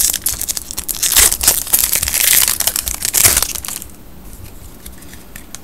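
A Magic: The Gathering booster pack's foil wrapper crinkling loudly as it is opened, for about four seconds, then stopping.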